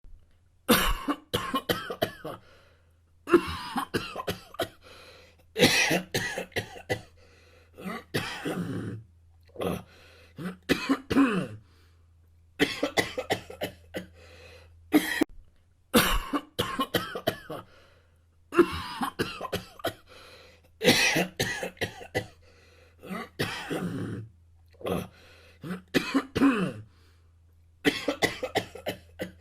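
A person coughing in repeated fits, one bout of several harsh coughs about every two seconds, some bouts trailing off in a short falling voiced sound.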